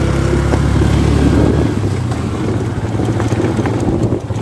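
Motorcycle engine running steadily while riding along a rough road, with wind buffeting the microphone.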